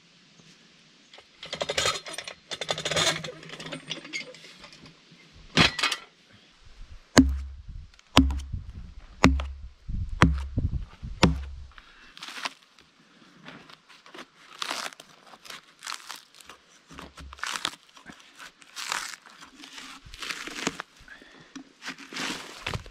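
Bark being scraped and torn off a log with a peeling knife, in a series of rasping strokes. In the middle comes a run of sharp knocks with heavy thuds, then the strokes resume at roughly one a second.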